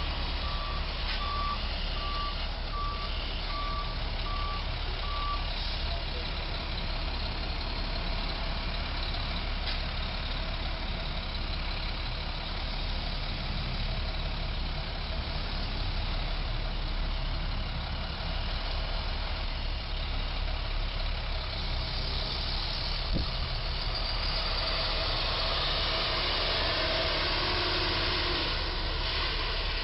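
A truck's backup alarm beeps about once every 0.7 seconds and stops about five seconds in, over a steady diesel truck engine running. Near the end the engine noise grows louder as the truck and its trailer move off.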